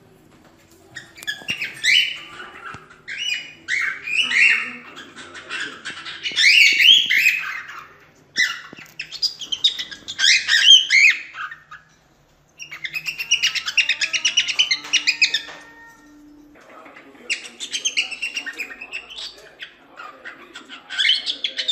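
Cockatiel singing: bursts of warbling whistles and chirps that glide up and down, with a stretch of rapid chattering around the middle, broken by short pauses.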